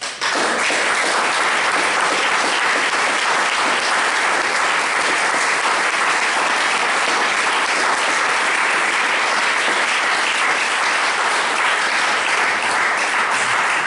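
Audience applauding steadily, breaking out suddenly and stopping near the end.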